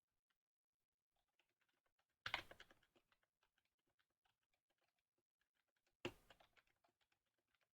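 Faint typing on a computer keyboard, many light keystrokes, with two louder clattering bursts about two and six seconds in.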